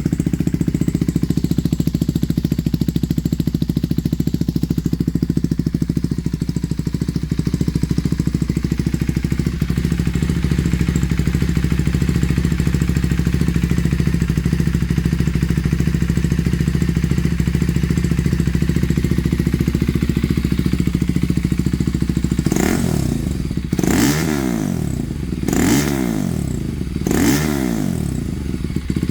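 2024 KTM Duke 390 Gen 3's single-cylinder engine idling steadily through a Barrel Rogue 2.0 slip-on exhaust with the decibel killer removed. Near the end it is revved in four quick throttle blips, each rising and falling in pitch.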